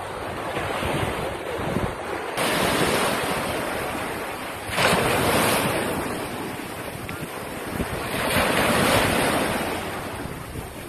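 Sea waves breaking and washing up a beach, surging about every two to three seconds, with wind buffeting the microphone.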